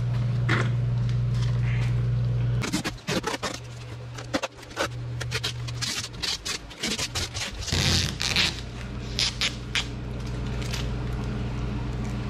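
Vinyl wrap film being cut free along the boat's gunnel with knifeless tape and the trimmed strip peeled off the hull: a run of short crackling, zipping scrapes starting a couple of seconds in. A steady low hum sits under it and is loudest at the start.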